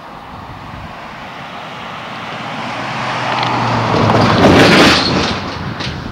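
A road vehicle passing by: its engine and tyre noise swells over several seconds, peaks about four to five seconds in, then fades.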